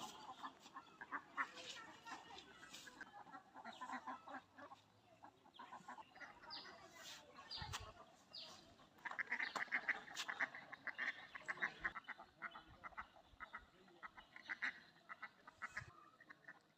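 A free-range poultry flock calling, many short overlapping calls, thickest and loudest from about nine to twelve seconds in.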